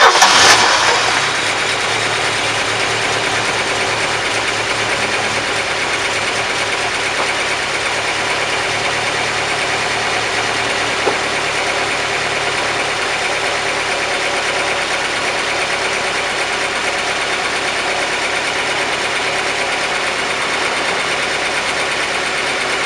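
Chevrolet Ipanema's four-cylinder petrol engine starting on its newly fitted distributor cap and rotor. It catches with a loud burst in the first second, then settles into a steady idle.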